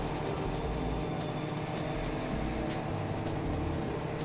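Viking ride-on lawn tractor's engine running steadily, with no sharp events.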